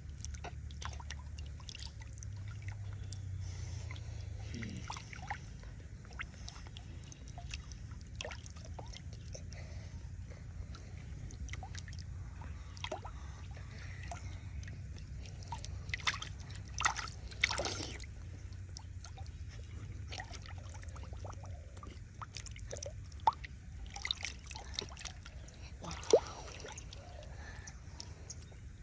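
Shallow, muddy water sloshing, dripping and squishing as hands work through it, with scattered short splashes; a few sharper splashes come past the middle and near the end. A low steady rumble runs underneath.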